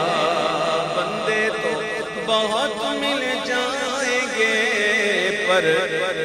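A male naat reciter singing a naat, drawing out long, wavering, ornamented notes with no words picked out.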